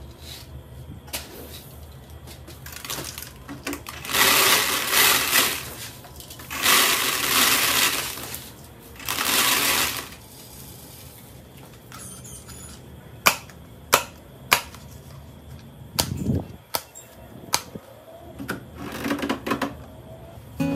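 Dry unhulled rice grains pouring and rattling into a plastic bucket in three rushes, followed by a few sharp clicks and taps of handling.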